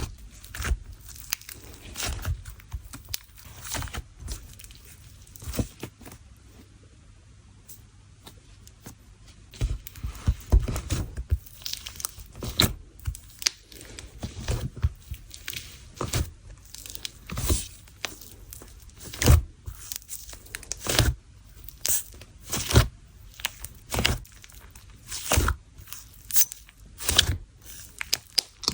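Jelly cream slime being squeezed and stretched by hand, giving irregular sticky pops, clicks and crackles with a brief quieter lull.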